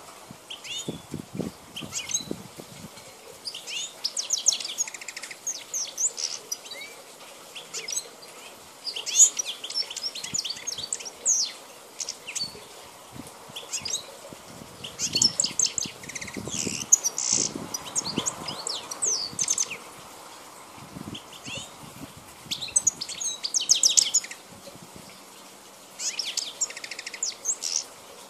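A wild-caught Balkan goldfinch (Carduelis carduelis balcanica) sings in bursts of rapid, twittering, liquid phrases. Each burst lasts a few seconds, with short pauses between them.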